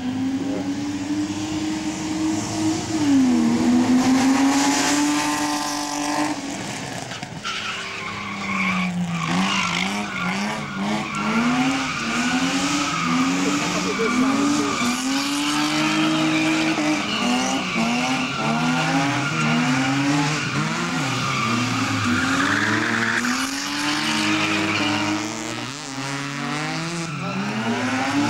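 A car engine revving hard, its pitch sweeping up and down about once a second, with tyres squealing as the car spins its wheels in tyre smoke.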